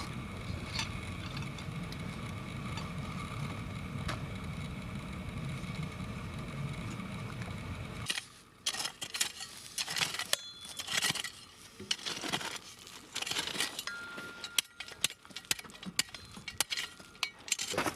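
A steady low rumble of wind or distant engine noise that cuts off abruptly about eight seconds in, followed by irregular sharp metallic clicks and clinks from equipment being handled.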